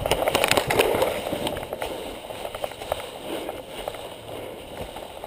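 Hurried footsteps crunching through dry fallen leaves, dense and loud for the first couple of seconds, then slowing into fewer, quieter rustles.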